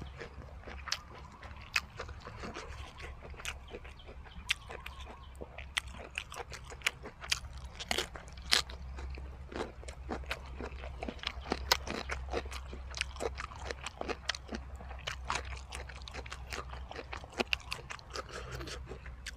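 Close-up chewing of a mukbang mouthful of crunchy jellyfish and beef-tripe salad: wet, irregular crisp crunches and mouth clicks, many per second.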